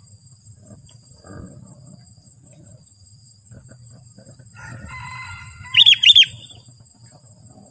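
Sooty-headed bulbul calling: a short, soft chattering phrase about five seconds in, followed by a loud burst of three quick falling notes about a second later.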